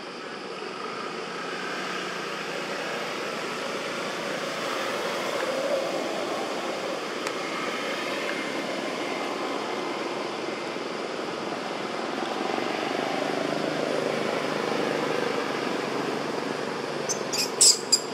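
Motorbike traffic passing on a road, engine noise swelling and fading, with a quick run of sharp clicks near the end.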